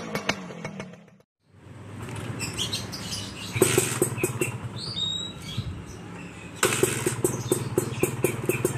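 Kawasaki Ninja R two-stroke single running at idle through an ORP7 racing exhaust, with a crisp, rattly ("garing kemprincing") pulsing note. The sound cuts out briefly about a second in, returns, and steps up in loudness twice. A bird chirps twice in the background.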